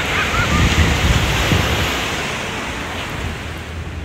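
Wind buffeting a phone's microphone over the rush of ocean surf breaking on a beach, easing slightly toward the end.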